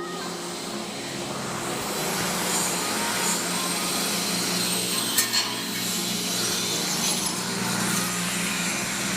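A vehicle engine idling steadily under a constant hiss, with one short knock about five seconds in.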